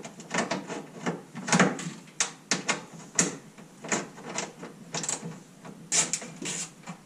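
Socket wrench turning out a radiator mounting bolt: a run of irregular metallic clicks and clacks, a few a second.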